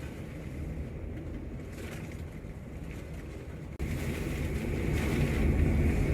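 Typhoon-force wind buffeting the microphone as a low, steady rumble, jumping louder about four seconds in.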